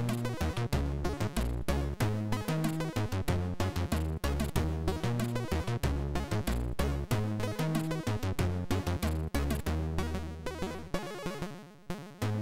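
Commodore 64 SID chip music: a fast chiptune with a stepping synth bass line and rapid, sharp noise-channel drum hits. The bass drops out briefly near the end.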